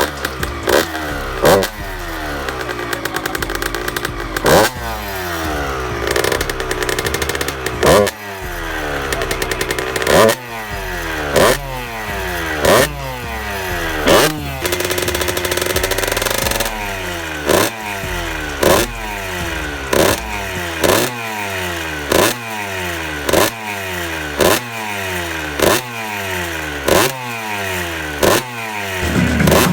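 A rebuilt 1998 Kawasaki KX125's two-stroke single-cylinder engine being revved over and over, its pitch rising and falling about once a second, with one longer held rev about halfway through.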